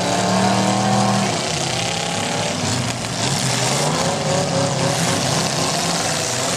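Demolition derby car engines running and revving over a broad arena noise. One engine holds a steady note for the first second or so, then the revs rise and fall.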